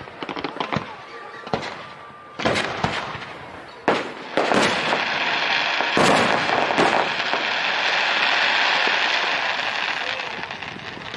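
Aerial fireworks display: a string of sharp bangs from shells bursting over the first seven seconds or so. From about four seconds in, a dense continuous rush of noise builds, holds for several seconds and fades near the end.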